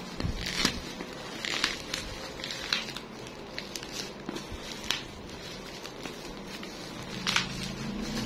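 Bubble wrap crinkling and crackling as hands pull and press it off a boxed camcorder: irregular rustles with sharp crackles, the loudest one about seven seconds in.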